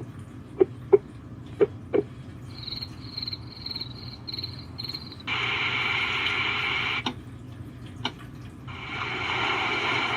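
Moeccei portable white noise machine being skipped through its built-in sounds: a few button clicks, then a recorded cricket track of evenly spaced high chirps, about two a second. A loud steady white-noise hiss starts about five seconds in, cuts off with a click, and another hiss builds near the end.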